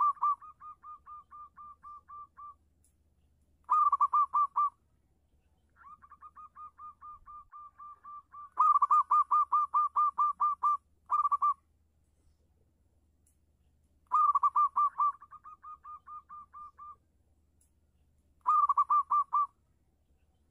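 A local zebra dove (perkutut) in full song: bouts of quick, rolling cooing notes that come every few seconds. Each bout opens with a loud burst and trails into a softer, evenly spaced string of coos.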